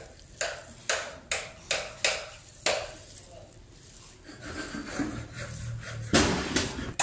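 Sliced bilimbi (kamias) fruit being spread by hand across a mesh net, the pieces rustling and clattering against each other in short sweeps about twice a second. There is a brief lull about three seconds in, then the sweeps grow busier and louder near the end.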